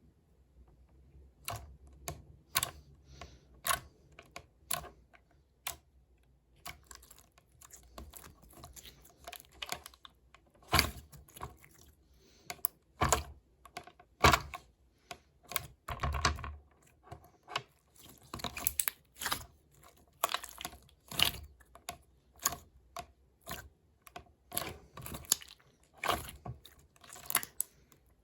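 Irregular clicking and tapping, some taps with a dull low knock, in a small room.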